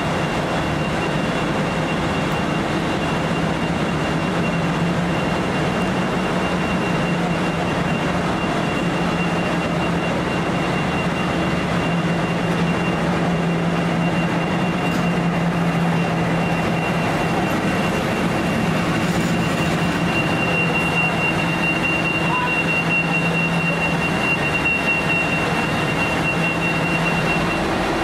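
V/Line N Class diesel-electric locomotive running steadily at a standstill: a constant low engine drone with a thin high whine above it, stronger in the second half.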